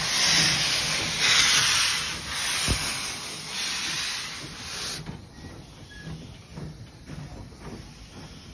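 Steam locomotive moving slowly past, with steam hissing hard from its cylinders in pulses about once a second. The hiss cuts off suddenly about five seconds in, leaving the quieter rhythmic sound of the engine running by.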